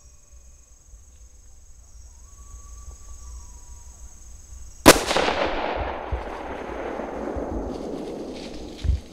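A single hunting rifle shot fired from a deer blind at a doe about five seconds in, sharp and loud, followed by a long echo that fades away over about four seconds.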